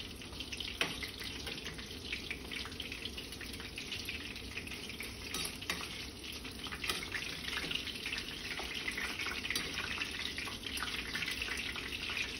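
Breaded oysters frying in a skillet of hot oil: a steady sizzle with many small crackles and pops.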